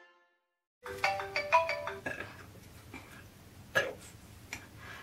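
A phone's timer alarm playing a short ringtone melody, a quick run of stepped notes starting about a second in and fading out, followed by a brief sharp click.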